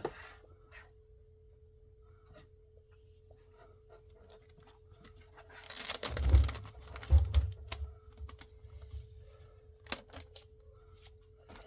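Comic books in plastic bags being handled and shuffled: light clicks and taps, then a louder rustle with a couple of thumps about six to seven and a half seconds in, as books are set down. A faint steady hum lies underneath.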